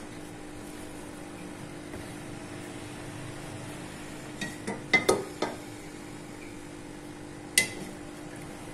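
Metal wok clinking and knocking against the gas stove's grate as it is handled and tilted to spread the oil: a cluster of clinks about five seconds in and one sharp clink near the end, over a steady hum.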